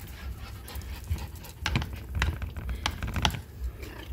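Metal fork clicking and scraping against a plastic food container as it picks at chunks of cooked meat: several sharp, light clicks in the second half.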